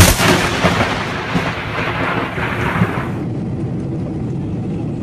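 Close lightning strike: a sudden sharp thunder crack, followed by about three seconds of crackling, rumbling thunder that then gives way to a steady low rush.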